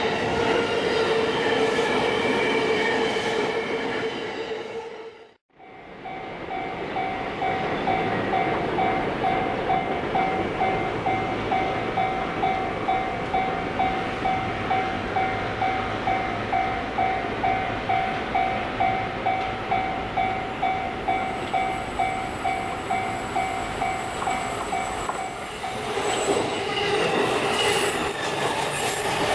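An electric commuter train running past on the rails; then, after a sudden break, a Japanese level-crossing warning bell dinging steadily about twice a second while the crossing is closed, with another train starting to run past near the end.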